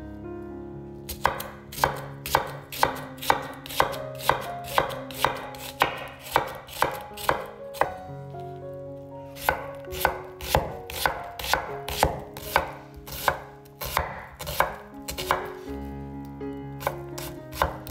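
Chef's knife chopping an onion on a wooden cutting board: sharp knocks of the blade on the board, about two a second, with a short pause near the middle and a few more knocks near the end.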